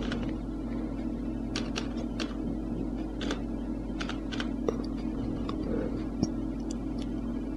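Computer keyboard keys clicking a dozen or so times at an uneven pace as a word is typed and corrected, over a steady low hum.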